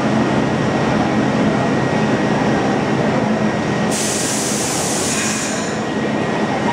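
R62A subway train standing at the platform, its equipment humming steadily. About four seconds in, a burst of air hiss starts abruptly and dies away within two seconds.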